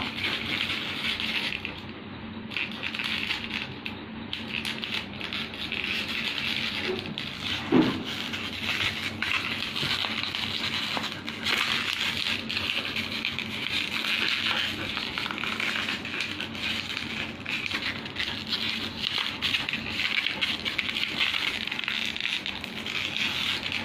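Yellow Labrador retriever chewing on a plastic bottle held in a hand: continuous crinkling and crackling of the plastic, with one brief louder sound about eight seconds in.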